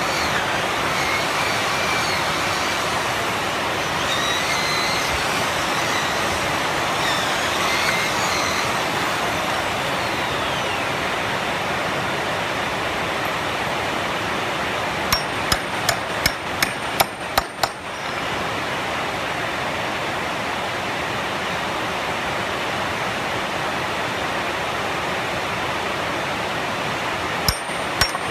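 A hammer striking about eight times in quick succession, with two more strikes near the end, over a steady rushing noise.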